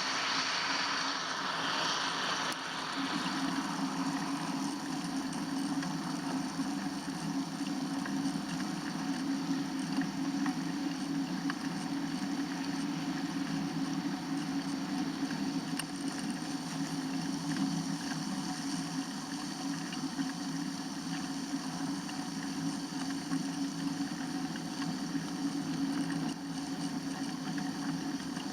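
Steady low rumble of riding noise from a bike on the move, with some wind on the microphone.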